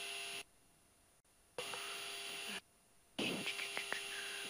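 Steady electrical hum and hiss on the cockpit intercom/headset audio line, with a few fixed tones in it. It cuts out to dead silence twice and comes back each time, and a few faint ticks sound near the end.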